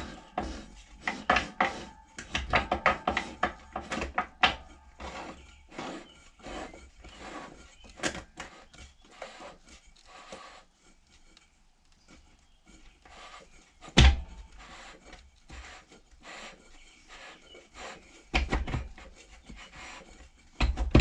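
Parts of a Ford C6 automatic transmission being handled and fitted by hand: irregular clicks, scrapes and rubbing, with one loud knock about fourteen seconds in and a few more knocks near the end.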